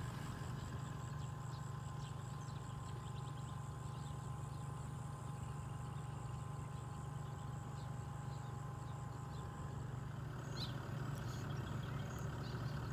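Natural riverside ambience: a steady high insect trill, scattered short chirping calls of birds or insects, and a steady low hum beneath.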